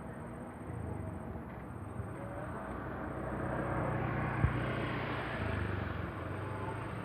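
A vehicle passing by, its noise swelling to a peak partway through and then fading, with one sharp knock near the peak.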